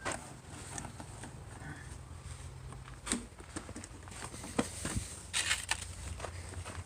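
Scattered clicks, taps and a short rustle from plastic van door parts being handled and fitted, over a steady low hum.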